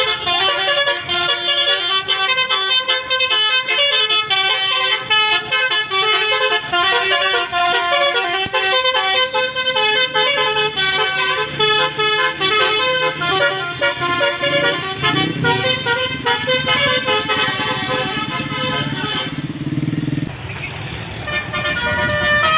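Bus 'telolet basuri' multi-trumpet musical air horn playing a fast tune of quick stepped notes. Near the end the tune breaks off and the bus's engine rumbles, then the horn starts up again.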